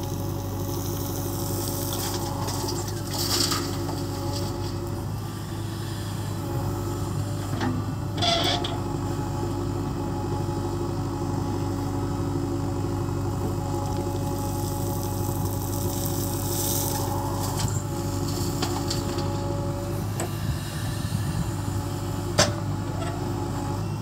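JCB 3DX backhoe loader's diesel engine running steadily under load while the rear backhoe arm digs soil. A few brief louder scraping spells from the working bucket, and a sharp knock near the end.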